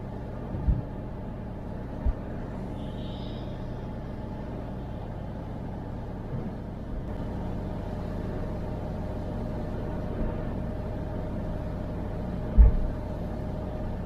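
Steady low rumble of a car driving on a wet road, heard from inside the cabin, with a thin steady hum coming in about halfway. A few short low thumps, the loudest near the end.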